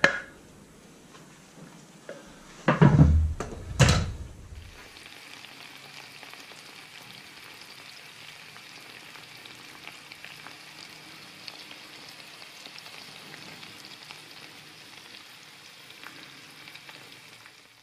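Chopped garlic sizzling steadily in melted butter in a frying pan, after a couple of thumps about three to four seconds in.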